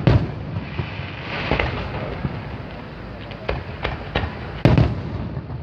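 Fireworks going off: a string of sharp bangs, a few seconds apart at first, then several in quick succession from about three and a half seconds in, with the loudest near the end.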